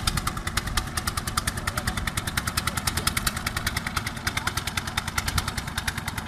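Small engine of a wooden river fishing boat running steadily, an even, fast chugging of about a dozen beats a second.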